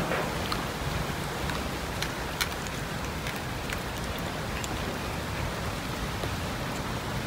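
Many cats eating raw chicken together: a steady wet chewing and smacking hiss, with scattered sharp clicks.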